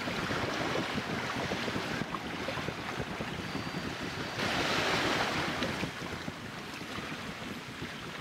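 Wind buffeting the microphone over the wash of waves on the shore, with a louder rush of surf about halfway through.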